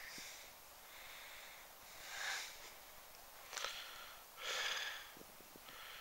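A man's quiet breaths or sniffs close to the microphone, two soft swells about two seconds apart with a faint click between them.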